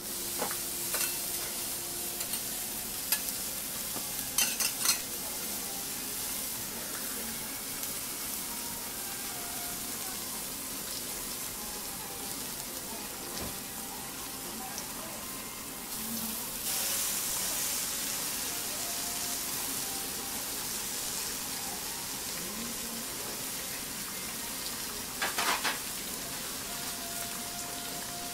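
Food frying and sizzling on a hot steel teppan griddle, egg and okonomiyaki among it, with a steady hiss that grows louder about halfway through. Metal spatulas clink and scrape against the plate a few times, in a cluster near the start and again near the end.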